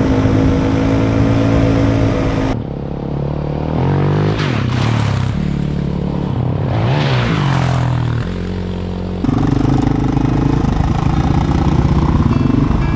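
Off-road vehicle engine running, revving up and down in several rising and falling sweeps through the middle. The sound changes abruptly twice, about two and a half seconds in and again near nine seconds.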